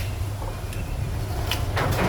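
Steady low hum with a few light clicks, and a short scrape about a second and a half in: engine parts and tools being handled on the bench.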